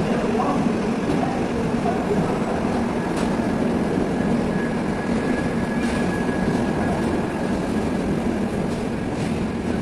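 Coaches of the Yashwantpur–Kannur Express rolling past a station platform: a steady rumble of wheels on the track with occasional clicks, and a faint high tone held for a few seconds in the middle.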